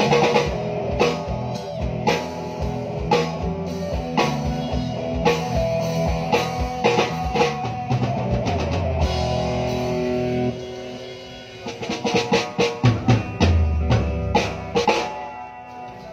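A live rock band of electric guitars over a drum kit, playing a steady groove at a soundcheck. About ten seconds in the full band playing breaks off, leaving scattered loud drum hits and a few low notes.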